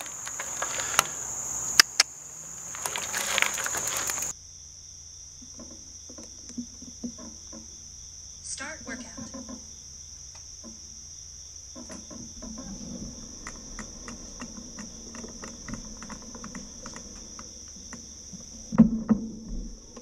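Steady high-pitched chirring of crickets, with a few sharp clicks in the first seconds. After a cut about four seconds in, a quieter cricket chorus comes with a run of light, irregular clicks from the bicycle's rear wheel. This is the rear hub that develops a clacking noise under pedalling.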